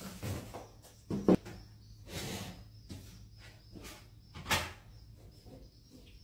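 Household things being handled and moved about on a low wooden cabinet: a few knocks and scrapes, with a sharp knock about a second in and another just past the middle.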